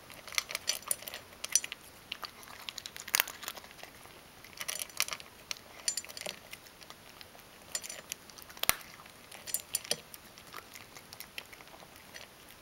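Ragdoll cat crunching dry kibble from a stainless steel bowl: irregular runs of crisp crunches and clicks, with one sharper click a little past the middle.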